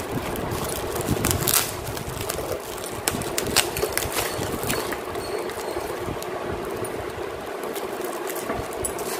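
Plastic bubble wrap and plastic packaging crinkling and rustling as it is handled and pulled apart, with many irregular sharp crackles.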